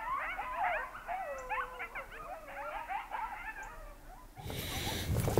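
Several canines yipping and howling together, many short high calls rising and falling over one another with a longer falling howl among them. About four seconds in, the calls give way to a louder rushing noise with a low rumble.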